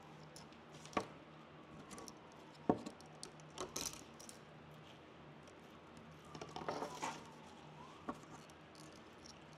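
Hands working evergreen sprigs and dried florals into a moss wreath base: soft rustling of greenery and moss, with a few sharp taps and clicks, the loudest about three seconds in.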